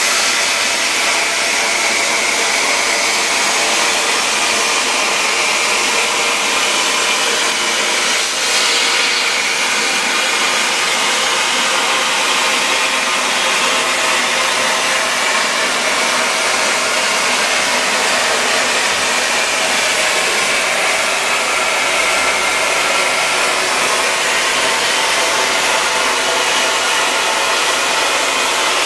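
Plasma cutter torch on a CNC plasma table cutting through sheet steel: a steady, loud hiss of the arc and compressed-air jet, with a brief dip about eight seconds in.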